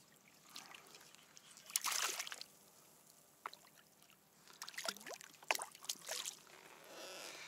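Water splashing in short bursts as a hooked mackerel thrashes at the surface beside a kayak and is lifted out, about two seconds in and again around five to six seconds in.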